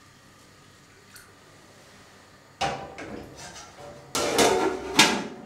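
Kitchen clatter of dishes and utensils being handled, in a few sudden bursts starting about two and a half seconds in, the loudest with a sharp knock near the end.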